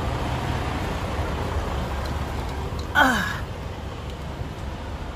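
Steady low rumble of an idling semi truck, and about three seconds in a short falling sigh from a person climbing up into the cab.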